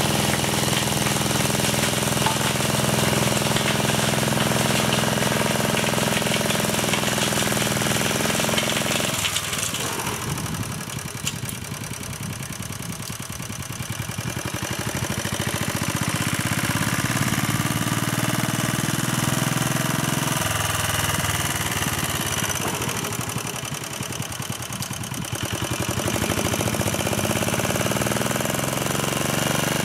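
A 1957 Staub PP3B walk-behind tractor's engine running steadily with a rapid knocking beat. Its sound drops lower and quieter for a few seconds about nine seconds in and again a little past twenty seconds, then picks back up.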